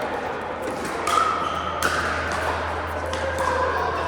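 Pickleball paddles striking a plastic ball: several sharp pops and taps, the loudest a little under two seconds in.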